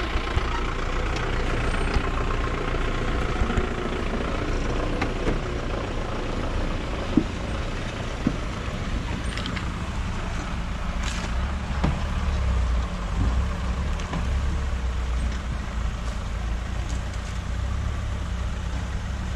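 Motorcycle engine running steadily at low speed, with road noise and a few short sharp knocks.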